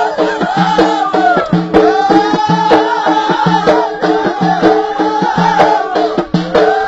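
Ahidous, Amazigh folk music: voices singing a chanted melody over the steady beat of bendir frame drums.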